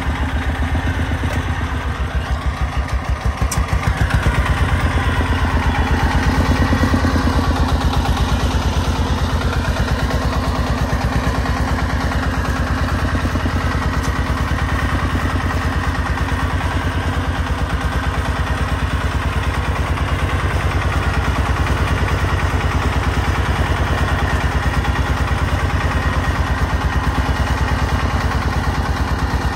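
Homemade công nông farm truck's diesel engine running under load, with a fast, even chugging, as the truck hauls a full bed of soil over rough ground; the engine picks up about four seconds in.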